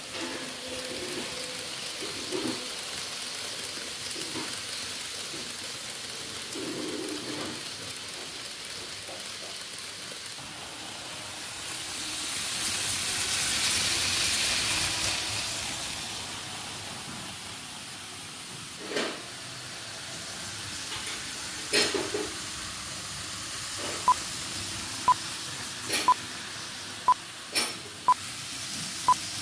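N-gauge model trains running on the layout: a steady whirring hiss of wheels and motors on the track that swells in the middle as a model Shinkansen passes close by. A few sharp clicks follow, and near the end a short high beep repeats about once a second.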